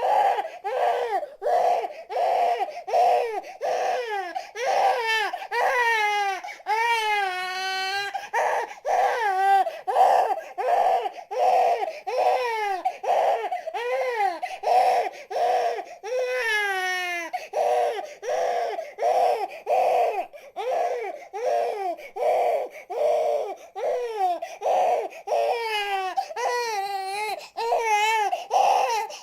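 Baby crying: short, high-pitched wails repeating about once a second, broken by a few longer wails that slide down in pitch. It starts abruptly.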